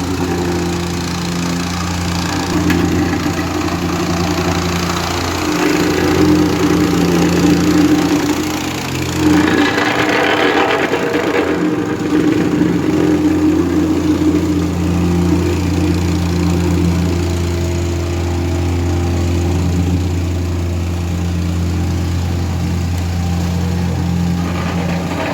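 Diesel engine of heavy asphalt-paving machinery running steadily at a constant speed, with a brief rush of hissing noise about ten seconds in.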